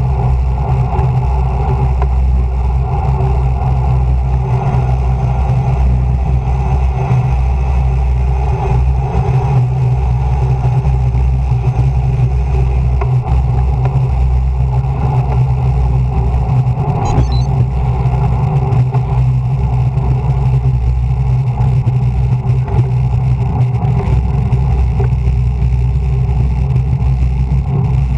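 Wind rushing over a bike-mounted camera's microphone during a fast road-bike descent: a steady, unbroken low rumble.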